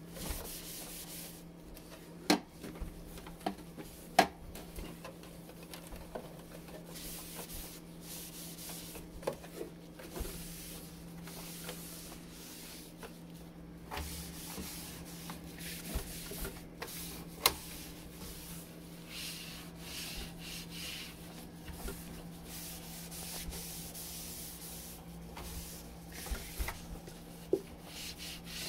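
Wiping and scrubbing of refrigerator surfaces, in repeated rubbing strokes. A few sharp knocks stand out, the loudest about two, four and seventeen seconds in, and a low steady hum runs underneath.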